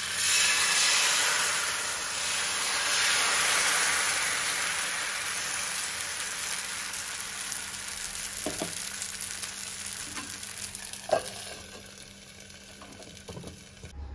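Batter sizzling in a hot pan: a loud hiss that sets in suddenly and slowly dies down, with a few light knocks of a utensil on the pan.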